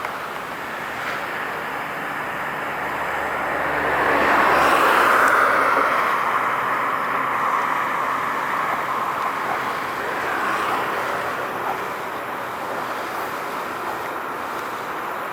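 Steady outdoor rushing noise, with a passing vehicle swelling up to a peak about five seconds in and then slowly fading away.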